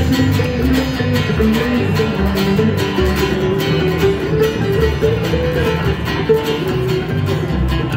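Acoustic string band playing a bluegrass tune live: upright bass plucking a steady low line under strummed acoustic guitar and picked mandolin.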